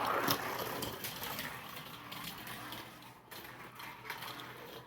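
Die-cast toy truck rolling down an orange plastic Hot Wheels track, a rattling roll with scattered small clicks over the track joints that fades after about a second.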